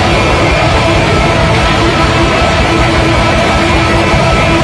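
Very loud noise-rock played by an ensemble of electric rock-band instruments: a dense, unbroken wall of sustained tones that holds at one level throughout.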